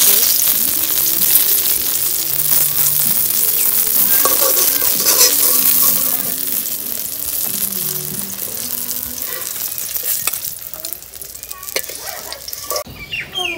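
Spiced eggplant slices sizzling as they fry in oil in an iron karahi, with a steel spoon scraping and clicking against the pan as the pieces are turned and lifted out. The sizzle thins out over the last few seconds.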